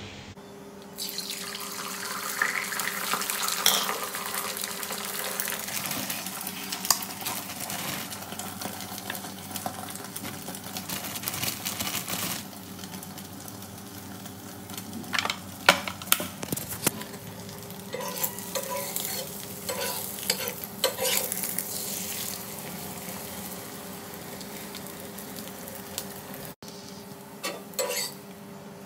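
Food sizzling as it fries in a hot pan, with utensils stirring, scraping and clinking against cookware, over a steady low hum.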